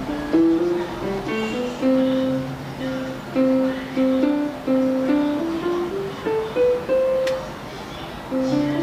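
Music: a melody of short plucked-string notes over a few held low bass notes.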